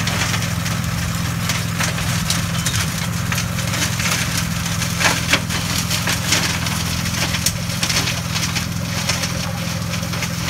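MAK 2.000 heavy-duty branch collector and flail shredder chewing up pruned peach branches: a rapid run of sharp wood cracks and splintering, the loudest about halfway through, over the steady running of the Hürlimann tractor's engine driving it.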